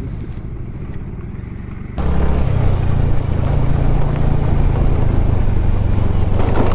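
Two-wheeler engine running under way, with heavy wind rush on the action-camera microphone; the noise jumps suddenly louder about two seconds in.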